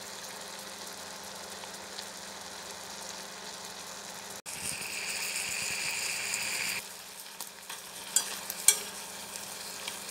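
Pork cubes simmering and sizzling in their reducing juices in a stainless steel pot, a steady hiss that turns louder for a couple of seconds after a cut near the middle. A few sharp clicks near the end as chopsticks turn the meat against the pot.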